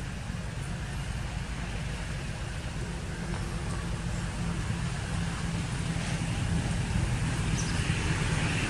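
Steady low engine rumble, like a motor vehicle running nearby, growing slowly louder toward the end.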